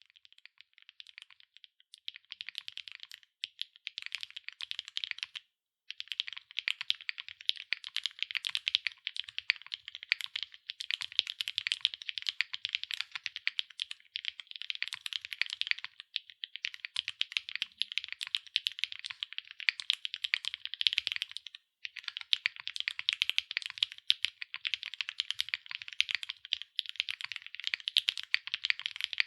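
Fast, continuous typing on a Cycle7 mechanical keyboard with HMX x Soulcat Poro Light linear switches, an aluminium plate and PBT+ABS double-shot keycaps: a dense run of light key clacks. There is a brief pause about five and a half seconds in and another short one a little past twenty-one seconds.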